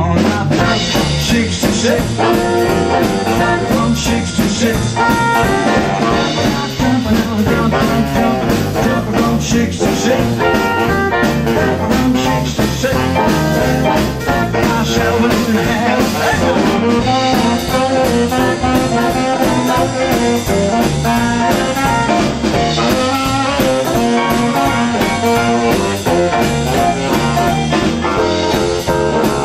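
A live jump-blues/rockabilly band playing an instrumental passage in swing time: upright double bass, drum kit, hollow-body electric guitar and a saxophone carrying the horn line.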